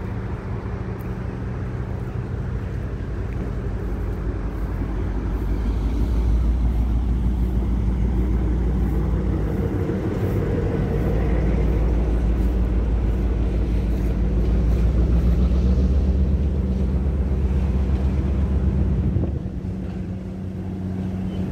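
Steady engine rumble that grows louder about five seconds in and drops away sharply shortly before the end.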